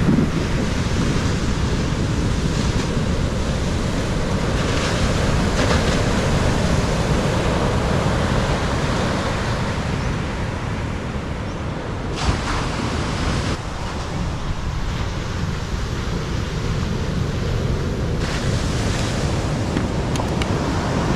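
Surf breaking on a sandy beach, a steady rushing noise, with wind buffeting the microphone.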